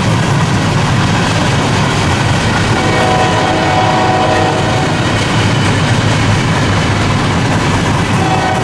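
Freight cars rolling past close by with a steady rumble and wheel clatter on the rails, while a diesel locomotive's air horn sounds from about three to five seconds in and again briefly near the end.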